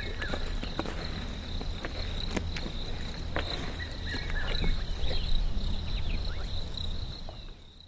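Lions feeding on a zebra carcass: scattered wet clicks and crunches of tearing and chewing, over a steady high insect trill and a low rumble. The sound fades out near the end.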